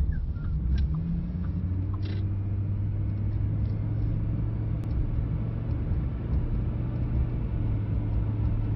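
Engine and road noise inside the cabin of a moving vehicle: a steady low drone.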